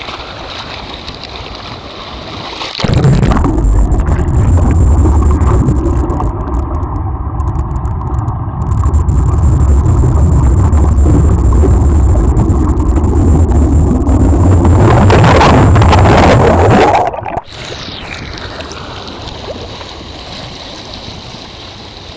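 Swimming-pool water splashing at the surface, then, about three seconds in, a very loud low rumble of churning water and bubbles heard underwater. It cuts off suddenly about three seconds before the end, leaving a softer steady rush of wind on the microphone.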